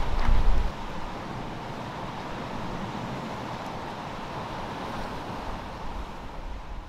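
Wind buffeting the microphone, strongest in the first second, over a steady wash of surf breaking on a rocky shore; the sound drops away near the end.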